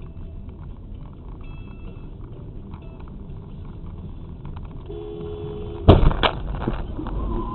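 Vehicle collision over a steady rumble of road and engine noise: a two-tone car horn sounds for about a second, then a loud crash bang comes about six seconds in, followed by a second impact a moment later.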